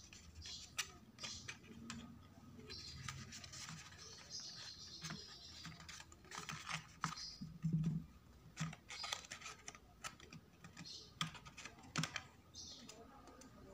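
Printed cardstock being handled and pressed between fingers: irregular rustling and crinkling with scattered small clicks and taps.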